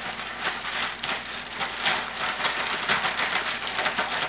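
Plastic zip-top bag holding seasoned flour and chicken thighs being shaken and handled to coat the chicken: continuous crinkling of the plastic with a fine, dense patter.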